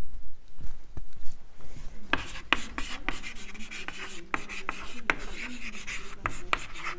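Chalk writing on a chalkboard: scratchy strokes and sharp taps of the chalk, starting about two seconds in.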